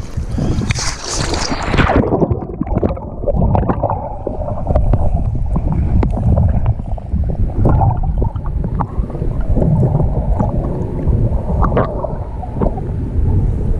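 Water splashing around a camera at the surface, then about two seconds in the camera goes under and the sound turns muffled: a low rumble of moving water with scattered small ticks and bubbling as a snorkeler swims.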